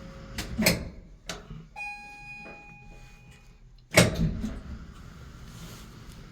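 Platform lift coming to a stop: its steady hum cuts off, there are a few mechanical clicks, then an electronic beep of about two seconds. About four seconds in comes a loud, sharp clunk of the lift door or gate.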